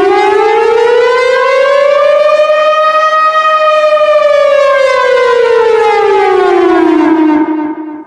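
Civil defense siren sounding the danger alarm: one long wail that rises in pitch to a peak about three seconds in, then slides back down and dies away near the end.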